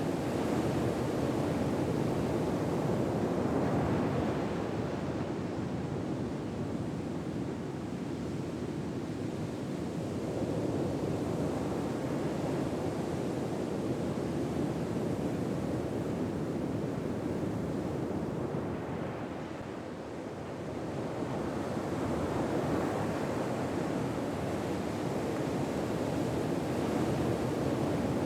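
Ocean surf ambience: a steady wash of waves that slowly swells and eases over several seconds at a time, dipping briefly about twenty seconds in.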